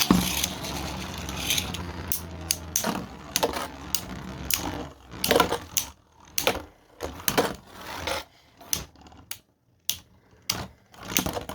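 3D-printed Beyblade spinning tops and their launcher handled between rounds: a string of sharp, irregular plastic clicks and knocks.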